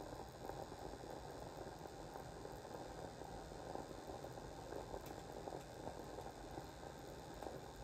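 Facial steamer running: water boiling inside it with a faint, steady bubbling hiss as steam comes out.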